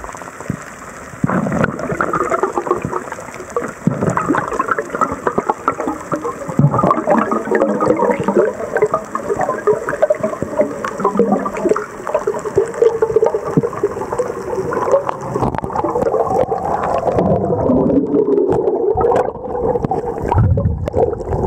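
A pod of dolphins heard underwater: a dense chatter of clicks and wavering squeaks and whistles, with gurgling water.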